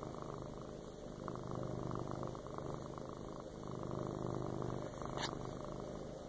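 Domestic tabby cat purring steadily while being stroked on the head, the purr swelling and easing every couple of seconds. A single sharp click about five seconds in.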